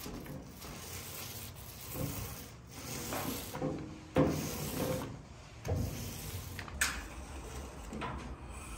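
Small paint roller rolling wet paint over the stove's metal back guard: repeated rubbing strokes, with a sharp knock about four seconds in.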